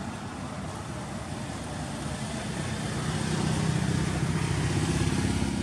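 A motor vehicle's engine running, a steady hum that grows louder from about halfway through as it draws nearer.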